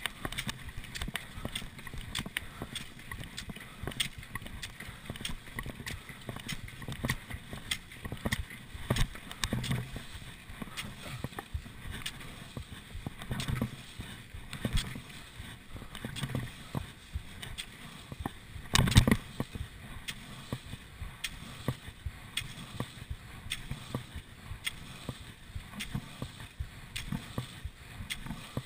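Cross-country skis gliding and scraping in groomed classic tracks, with the sharp clicks of ski poles planted in the snow, and one louder knock about two-thirds of the way through.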